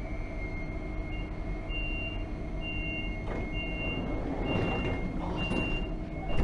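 Door-closing warning beeps of a German regional train: a high beep repeated about once a second as the red sliding passenger doors close. A steady electric whine and hum run underneath, and the sound peaks near the end as the doors shut.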